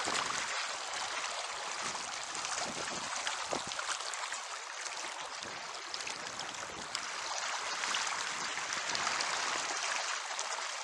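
Steady rush of river current, with splashing from a hooked brown trout thrashing at the surface as it is brought in.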